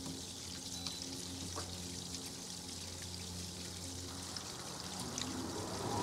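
Swimming pool circulation pump running at full flow: a steady low electric hum with water rushing through the pipes of the heat pump, and a few faint clicks. The heat pump's compressor has not yet started. A louder rushing noise builds near the end.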